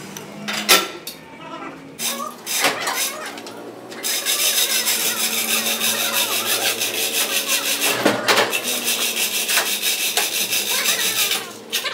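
A few sharp metal knocks, then from about four seconds in a steady, fast metallic rasping clatter that stops shortly before the end, as a heavy axle tube is worked into place on a lathe with chains.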